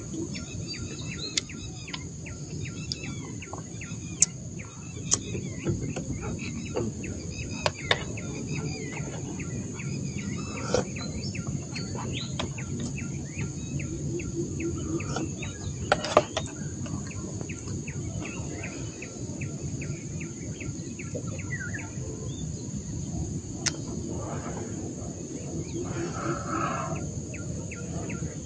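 Many birds chirping over a steady high insect drone and a low, even background noise. A few sharp clicks stand out.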